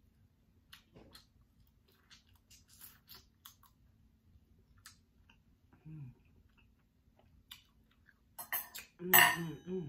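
Close mouth sounds of a person eating with her fingers: soft chewing and small wet lip clicks. A short hum comes about six seconds in, and near the end a louder smack of the lips is followed by a brief hummed "mm".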